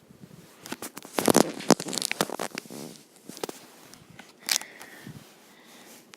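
Close handling noise: irregular rustling, scraping and clicks, busiest in the first three seconds, with one sharp click about four and a half seconds in.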